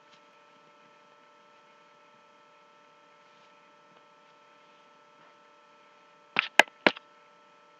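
Faint steady electrical hum with several fixed whining tones, then, about six and a half seconds in, three sharp clicks in quick succession.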